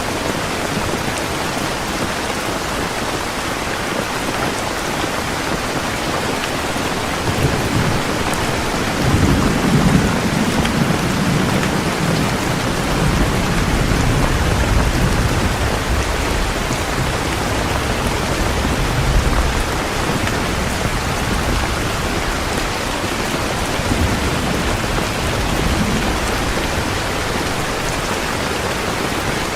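Heavy rain falling steadily, with low rolls of thunder rumbling from about seven seconds in to about twenty seconds, loudest around ten seconds.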